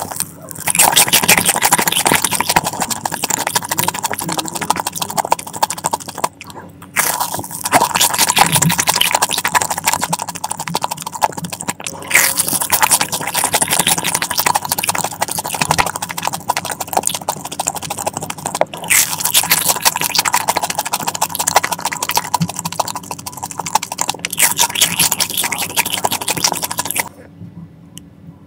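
Close-up chewing of a crispy, sugar-coated Korean corn dog: dense, crunchy crackling in runs of several seconds with brief breaks. It goes quiet shortly before the end.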